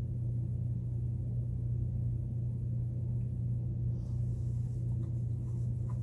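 A steady low hum runs unchanged, with a few faint clicks near the end.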